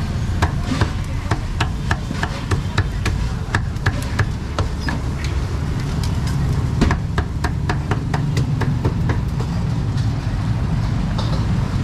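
Cleaver chopping meat on a wooden board in quick, uneven strokes that stop near the end, over a steady low rumble of street traffic.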